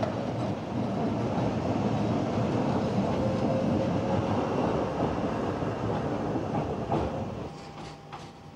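Docklands Light Railway train pulling out of the platform: a steady rumble of wheels on the rails with a faint motor whine, and a few knocks over the rail joints. The sound falls away about seven and a half seconds in as the train draws clear.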